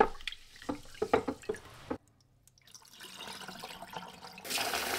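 Short-grain rice being washed by hand in a glass bowl of water, with sloshing and small splashes as the grains are swirled. After a brief break, the cloudy rinse water is poured off, building to a steady rush of water near the end.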